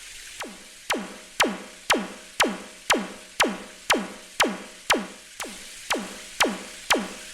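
Electronic synth drum hits repeated evenly about twice a second, fourteen in all. Each is a sharp zap whose pitch drops quickly.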